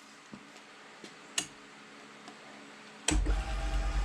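A few light clicks and handling sounds of tooling, then about three seconds in a power tool starts suddenly and runs with a fast, even rattle as the milling-machine cutter is changed.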